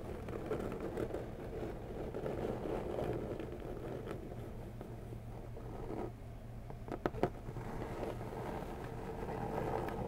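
Slow, continuous scratching with the fingers on the sides of a brown corrugated cardboard packing box, with two or three sharp clicks a little after the middle.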